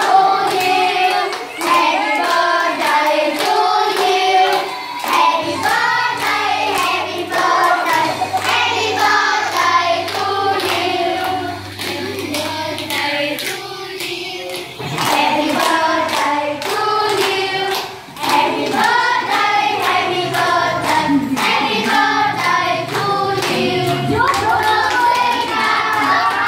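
A group of children and adults singing a birthday song together, clapping their hands in time.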